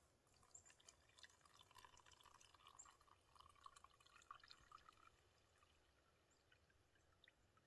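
Faint trickle and splash of water being poured into a measuring cup, lasting about five seconds and then stopping.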